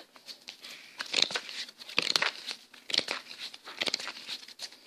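Irregular crinkling and rustling handling noise: many short crackles close to the microphone.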